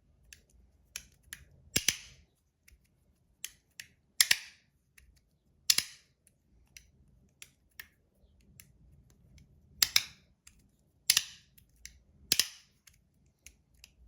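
Aura slider fidget being slid back and forth, snapping into place with sharp clacks: about six loud ones at irregular intervals, with fainter clicks in between.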